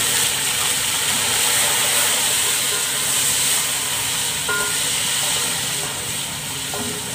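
Hot oil and deep-golden fried onions sizzling hard as one to two spoonfuls of water hit them: a loud, steady hiss that slowly eases off near the end.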